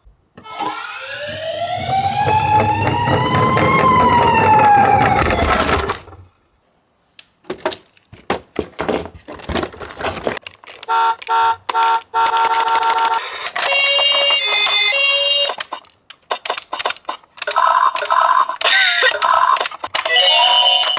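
Toy ambulance sirens. First an electronic wail rises and falls over about five seconds, over a low rolling rumble. After a short silence comes plastic clicking and rattling, then electronic beeps stepping back and forth between two pitches, with more clicks partway through.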